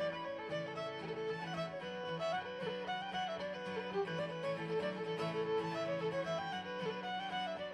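Fiddle and acoustic guitar playing a reel: the fiddle carries the tune in quick running notes over the guitar's strummed chord backing.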